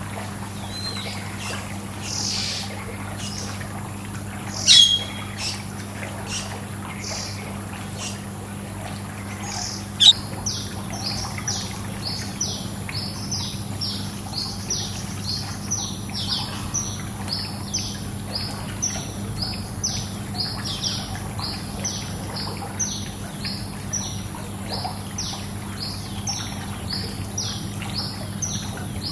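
Birds chirping over steady pool-water noise and a low hum. Two sharp, loud calls stand out, about five and ten seconds in. From then on one bird repeats a short chirp about twice a second.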